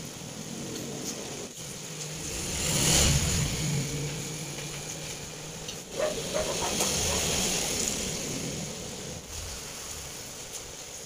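Engine of a passing motor vehicle, swelling to its loudest about three seconds in and then fading.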